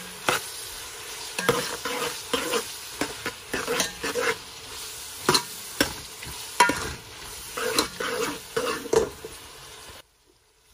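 Sliced onions sizzling in hot ghee while a steel spoon stirs them, scraping and knocking against the metal pot again and again. The sound cuts off suddenly near the end.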